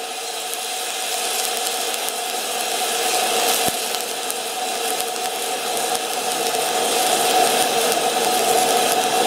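Stick-welding arc running a 3/32" 7018 low-hydrogen rod along the crack in a cast iron boat exhaust manifold, crackling and hissing steadily over a steady hum.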